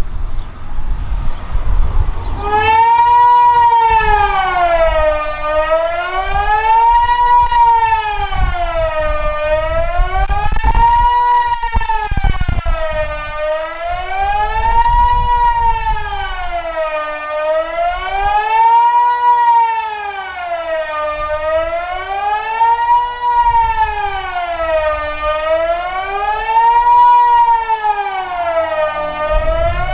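Kockum Sonic Delta electronic civil-defence siren starting about two and a half seconds in and sounding a steady wail that rises and falls about every four seconds. This is the Swiss general alarm signal.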